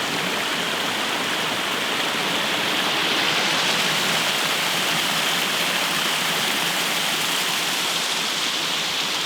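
Woodland waterfall cascading: a steady, unbroken rush of falling water.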